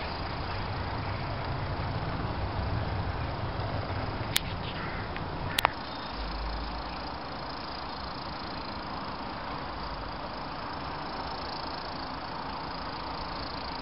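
00 gauge model train coaches rolling past on the track with a low rumble, and two sharp clicks about four and a half and five and a half seconds in. After that the rumble stops and only a steady outdoor hiss remains.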